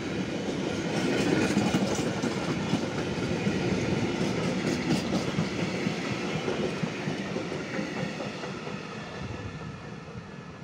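Container flat wagons of an intermodal freight train rolling past, their wheels clattering on the rails. The noise fades from about halfway through as the end of the train passes and draws away.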